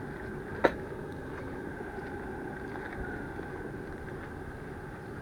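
Steady outdoor background noise with one sharp knock about half a second in.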